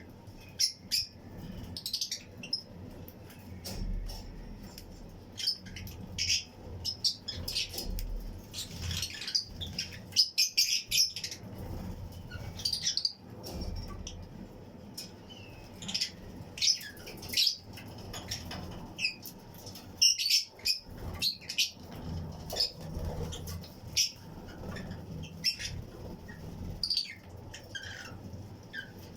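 A colony of Fischer's and lutino lovebirds chirping: many short, high, shrill calls overlapping one another without pause, with some wing flapping.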